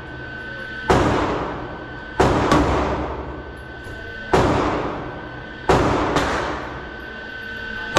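Six shots from a 9 mm semi-automatic pistol fired at an indoor range, each followed by a long ringing echo off the hard walls. The shots come at an uneven pace, including two quick pairs: one about two seconds in and one near six seconds.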